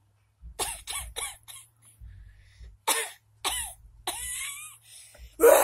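A person coughing repeatedly in short fits, the loudest cough near the end.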